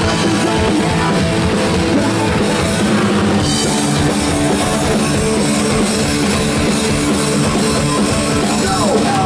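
Live hard rock band playing loud: distorted electric guitars and bass over a drum kit.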